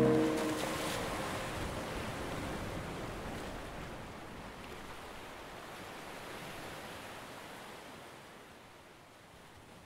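Steady hiss of sea surf and wash, fading out slowly.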